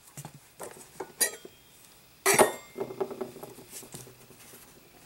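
Objects being handled and shifted about on a hard surface: a string of knocks and clinks, the loudest a little over two seconds in, followed by lighter rattling.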